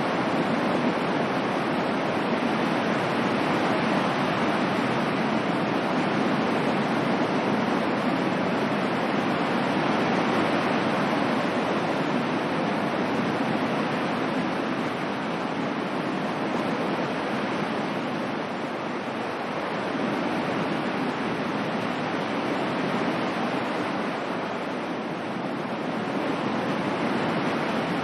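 Ocean surf: a steady wash of waves with slow, gentle swells and lulls in loudness.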